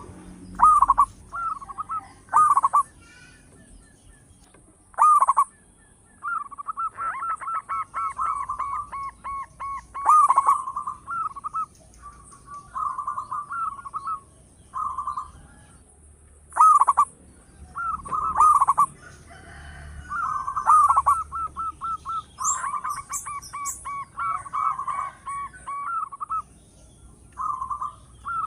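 Zebra dove (local perkutut) cooing over and over: short gliding coos alternating with long runs of rapid, evenly repeated staccato notes, all around one mid pitch.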